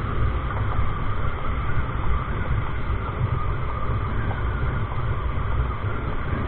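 Steady riding noise from a moving motorcycle: wind buffeting the microphone, with a low, fluttering rumble, over the TVS Apache RTR 160's single-cylinder engine running at a constant cruise.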